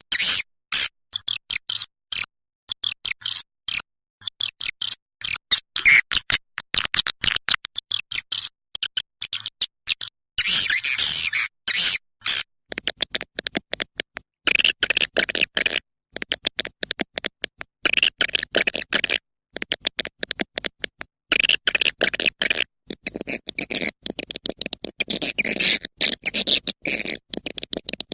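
A recording of swiftlets calling: dense, rapid, high twittering and chirping in quick choppy bursts with short gaps between them, played as a lure call for swiftlet houses.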